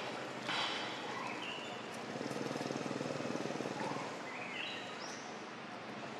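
Outdoor ambience: steady background noise with a few short rising bird chirps, and a low pulsing hum for about two seconds in the middle.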